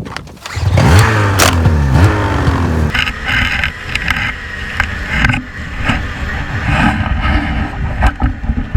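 Snowmobile engine revving up about half a second in, its pitch climbing for a couple of seconds, then running steadily under load with scattered knocks and rattles.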